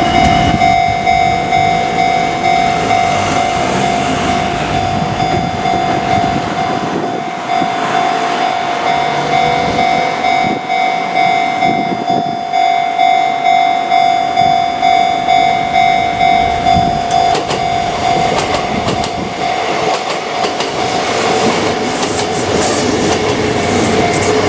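Japanese level-crossing warning bell sounding a steady high tone pulsed at about one and a half strikes a second, while a Kintetsu train rumbles through the crossing with its wheels clicking over the rail joints.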